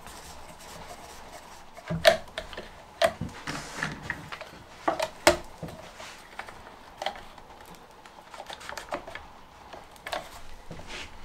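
Woodworking clamps being set on a box glue-up: irregular sharp clicks and clacks of plastic corner clamps and metal bar clamps being placed and squeezed, the loudest a few seconds in.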